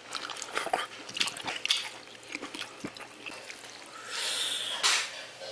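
Chopsticks stirring and lifting noodles in a bowl of jjamppong soup: quick wet clicks and taps against the bowl, then a longer wet rustle about four seconds in, ending in a sharp tap.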